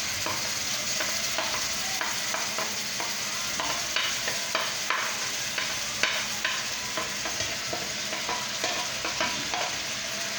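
Vegetables sizzling in hot oil in a pan as tomatoes are added to sautéing onions and green bell pepper, with a utensil scraping and clicking irregularly against the pan while stirring, the clicks thickest in the middle.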